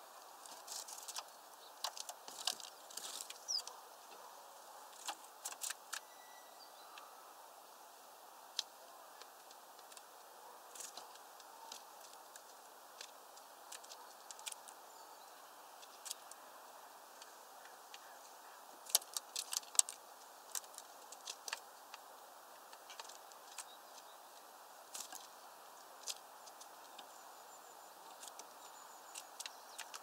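Tree sparrows and a great tit feeding at a seed tray: irregular sharp clicks and taps of beaks and feet on the tray and sunflower seed husks, bunched near the start and again around twenty seconds in, over a faint steady hiss.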